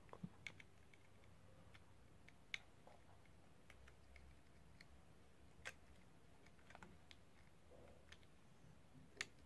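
Faint, scattered clicks from small plastic connectors and wires being handled on a drone frame, over near silence. The loudest click comes near the end.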